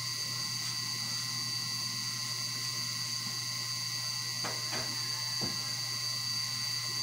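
Steady low hum with a steady high-pitched whine over it, and a few faint knocks about four and a half to five and a half seconds in.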